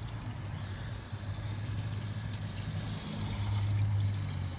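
Water from a garden hose rushing through a car's heater core and heater hoses as a steady low rumble that swells for about a second near the end. The water now flows freely because the clog in the heater core has given way.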